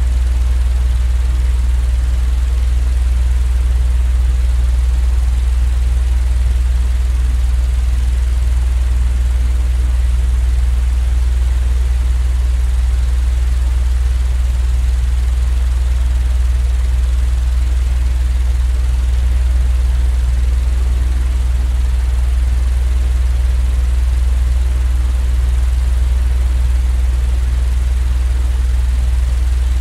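Steady, unchanging low droning hum with an even hiss over it, a continuous white-noise track for sleep.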